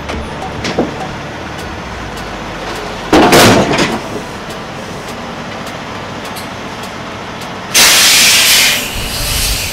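Semi tractor's diesel engine running low and steady as it backs under a trailer, with two loud hisses of air from its air system: a short one about three seconds in and a longer, louder one near the end.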